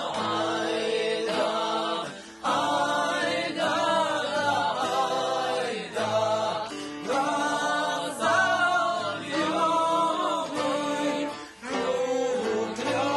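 A group of people singing a song together, with short breaths between phrases.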